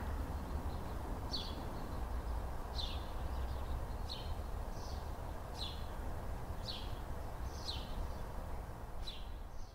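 A bird chirping over a steady low background rumble. It gives a single short, falling chirp about seven times, roughly one every second and a quarter.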